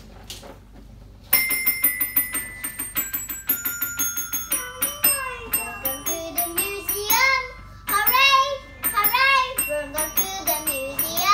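A young girl singing her own song over an electronic keyboard. The keyboard begins about a second in with quick notes, and she starts singing a few seconds later.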